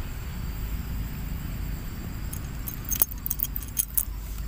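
Low steady rumble, then from about halfway in a quick, irregular run of light clicks and clinks with a faint metallic ring.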